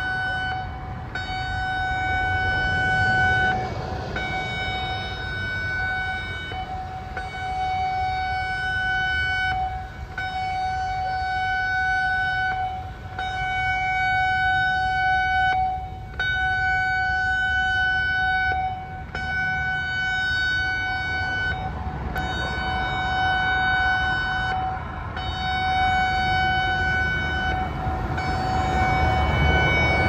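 Federal Signal Modulator 6024 electronic siren sounding its alert signal: a steady tone with overtones that holds its pitch and swells and fades about every three seconds. Road traffic rumbles underneath.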